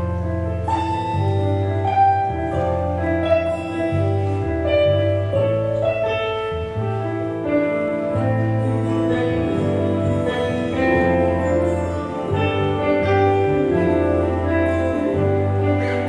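Instrumental music: sustained chords over a steady bass line, the notes changing every second or so.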